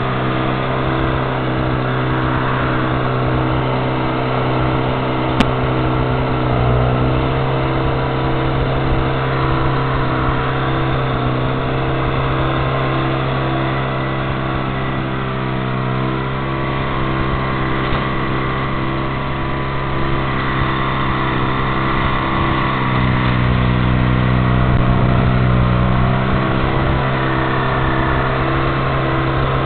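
Engine of a railroad track repair crane running steadily as it works, with a throb that pulses about twice a second. Its pitch dips briefly twice, and it runs louder for a few seconds past the middle. A single sharp click about five seconds in.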